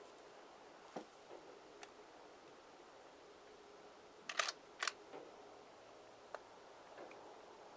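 Faint sharp mechanical clicks from a rifle being handled: two quick pairs about halfway through and a few softer single clicks, over a faint steady hum.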